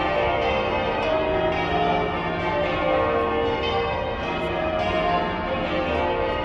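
Church bells rung in changes, many bells sounding one after another in a steady, overlapping peal.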